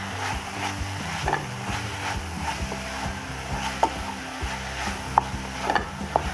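Wooden spatula stirring and scraping a thick onion-tomato masala around a nonstick pan in irregular strokes, over a faint sizzle of the frying masala.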